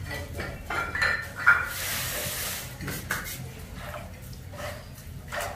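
Metal spoon clinking against a bowl as spices are spooned in, a few short sharp clinks, with a brief hiss about two seconds in.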